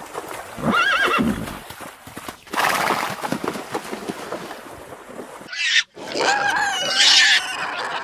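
Horse whinnying: a short wavering neigh about a second in and a longer one in the last two seconds, with loud, noisy breathing sounds between.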